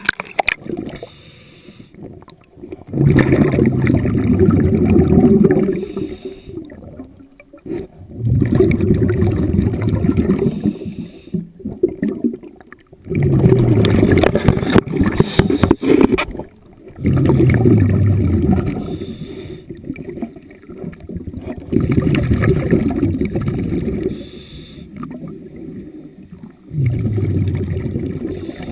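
Scuba diver breathing underwater: exhaled bubbles gurgle out of the regulator in regular breaths, one every four to five seconds, each lasting two to three seconds, with quieter gaps between them.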